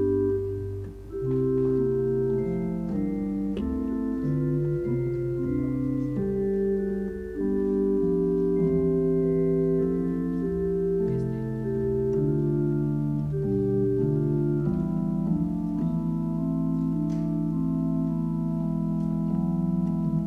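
Organ playing slow, held chords over a low sustained bass, the chords changing every second or so with brief breaks about a second in and about seven seconds in: a prelude before the service begins.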